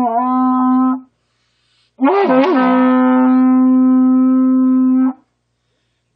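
A hand-held horn blown in long, steady blasts on one pitch: the first blast cuts off about a second in, and after a moment's silence a second blast starts with a wobble in pitch and is held for about three seconds.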